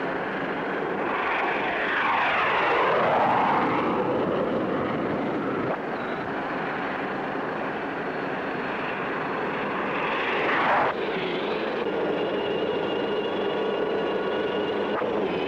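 Military aircraft engines at an airfield: an engine roar whose pitch falls and rises as an aircraft passes in the first few seconds, and a falling sweep near eleven seconds in as another goes by. After an abrupt change just after that, a steady engine whine with a held high tone, from turbine helicopters.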